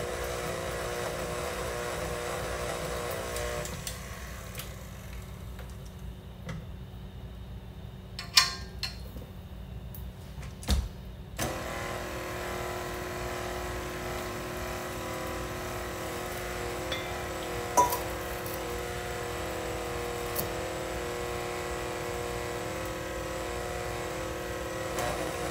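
Electric stand mixer running steadily at its low 'stir' speed, mixing chocolate cake batter. Its motor cuts out about four seconds in, a few clinks follow, and it starts again abruptly at about eleven seconds and keeps running.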